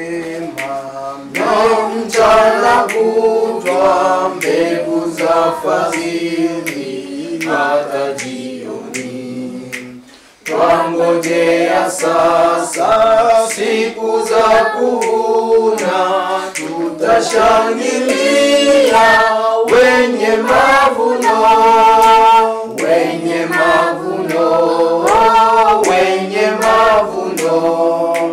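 Choir singing a hymn a cappella in several voice parts, with a short pause between lines about ten seconds in.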